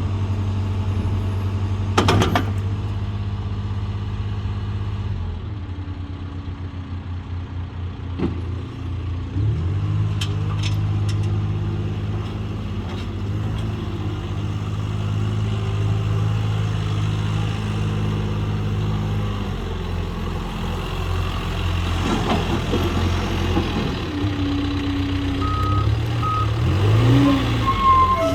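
John Deere 410K backhoe loader's diesel engine running steadily, revving up about nine seconds in and settling back later, with a sharp clunk about two seconds in. Its reversing alarm starts beeping near the end.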